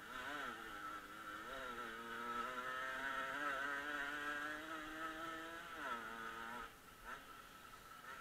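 Motorcycle engine running under the rider on a dirt track, its revs rising and falling several times, holding high through the middle and dropping off about six seconds in as the throttle closes.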